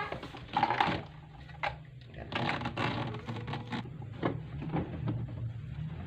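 Irregular knocks, clatter and scraping from the hard plastic base of a washing machine as it is handled and shifted by hand.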